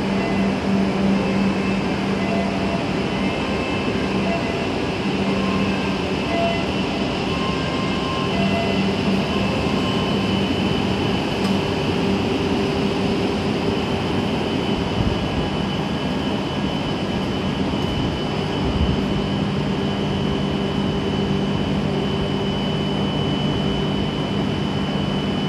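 Shinkansen bullet train at the platform: a steady hum and rush from its motors and electrical equipment, with several steady whining tones. The lowest tone drops a little in pitch about three quarters of the way through.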